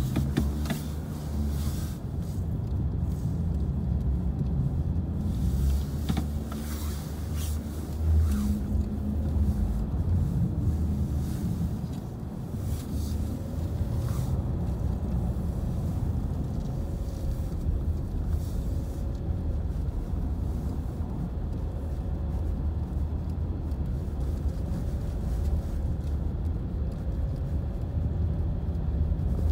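Car driving on a snow-covered road, heard from inside the cabin: a steady low rumble of engine and tyres, with a few light clicks and knocks in the first several seconds.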